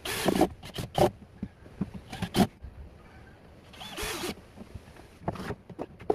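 Cordless drill-driver run in several short bursts, driving screws to fix a metal ball-bearing drawer slide to a plywood cabinet side.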